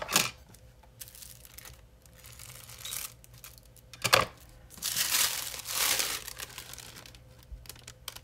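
Tissue paper crinkling and rustling as it is handled and lifted, with two sharp crackles, one at the start and one about four seconds in.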